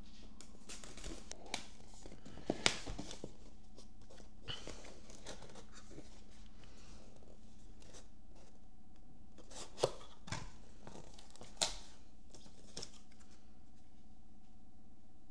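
A cardboard box being slit open with a knife and unpacked: blade scraping through tape, cardboard rustling and sliding, and a few sharp clicks and knocks, loudest a couple of seconds in and again around ten seconds in.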